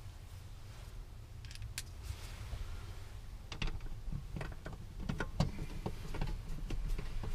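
Scattered light clicks, taps and small rattles of parts being handled during hand work, over a steady low hum. The taps come thicker in the second half.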